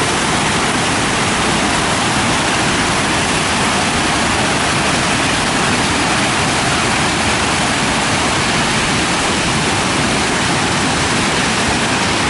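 Steady rush of water pouring over a broad, multi-tiered waterfall, holding an even level throughout.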